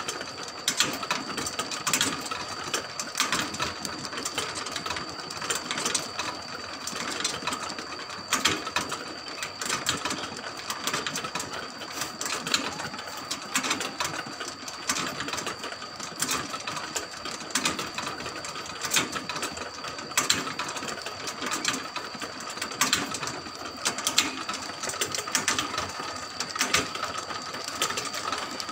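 Motor-driven rotisserie spits turning: a steady mechanical whine under a fast, continuous clatter from the sprocket gear drive, with louder clicks at irregular intervals.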